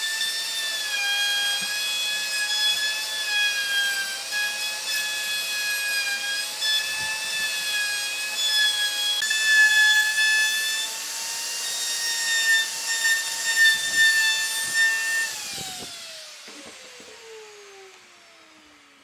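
Electric power tool motor running with a steady high whine that wavers slightly in pitch, then switched off about three-quarters of the way through and winding down, falling in pitch as it fades.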